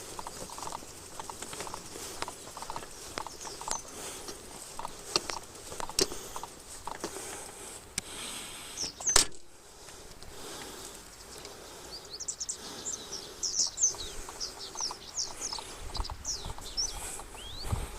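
Light irregular tapping for about the first half, then a single sharp click. After that, small birds chirping with many short, high, quickly falling calls.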